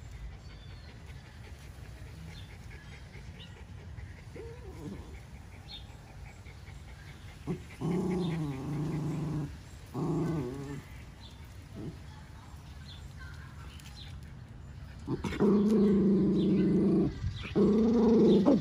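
Puppy growling in play, in four stretches: two shorter ones around the middle and two longer, louder ones near the end.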